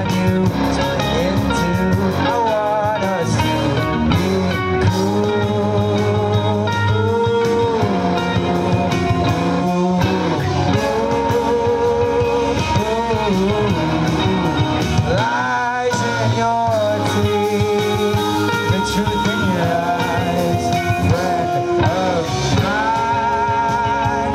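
Live rock band playing: electric guitars, bass guitar and drums, with a lead melody that bends and wavers over a steady groove.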